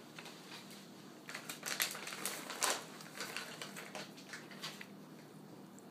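A cluster of light clicks, taps and scrapes on a tabletop as a cat noses and paws at cards laid on a wooden table. They come mostly between about one and three and a half seconds in.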